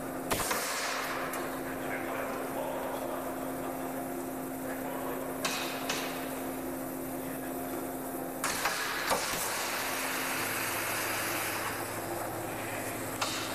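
Thermoforming machine running: a steady electrical hum broken by several short, sharp bursts of air hiss and knocks, the hum dropping lower about two-thirds of the way through.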